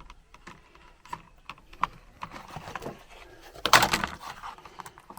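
Light clicks and taps of vinyl soffit and plastic vent parts being handled and worked, with one louder, brief scrape a little under four seconds in.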